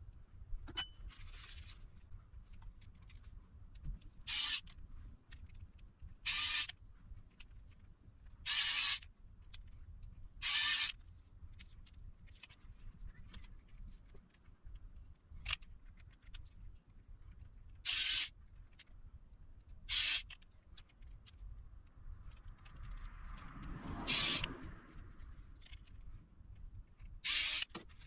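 Eight short hissing bursts, each about half a second, spaced a few seconds apart, with faint handling noise between them and a broader rustling swell about two-thirds of the way through.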